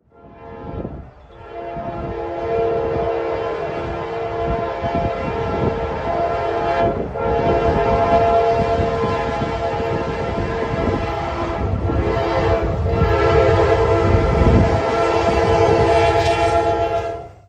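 Train horn sounding long, held blasts over the rumble of a moving train. It swells in over the first couple of seconds, breaks off briefly about seven seconds in and twice more around twelve to thirteen seconds, then cuts off abruptly.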